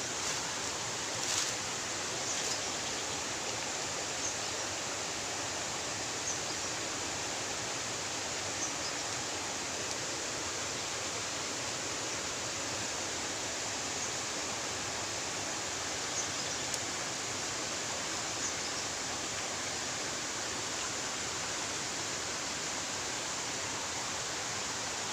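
Steady rush of flowing stream water, with a few faint clicks over it.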